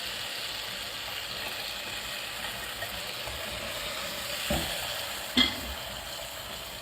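A blended tomato, bell pepper, garlic and ginger paste sizzling in hot oil with browned onions in a pot as it is stirred, a steady frying hiss. Two knocks about four and a half and five and a half seconds in, the second the louder.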